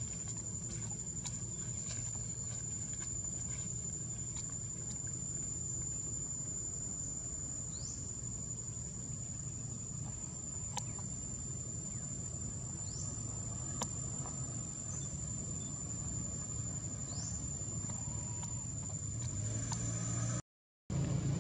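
Steady, high-pitched insect drone with a low steady rumble beneath it. Three short rising chirps and a few faint clicks are heard, and the sound drops out briefly near the end.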